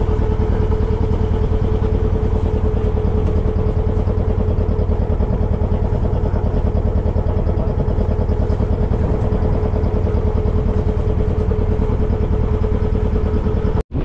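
Fishing boat's inboard diesel engine running steadily while underway: a fast, even engine beat with a constant whine over it.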